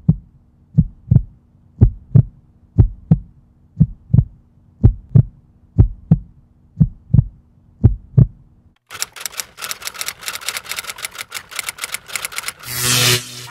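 Heartbeat sound effect: double lub-dub thumps about once a second over a faint low hum. About nine seconds in it gives way to a rapid clatter of clicks, ending in a short loud burst of noise near the end.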